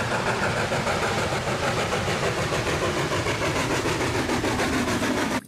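Steam locomotive running along the track: a steady, dense mechanical noise that cuts off suddenly near the end.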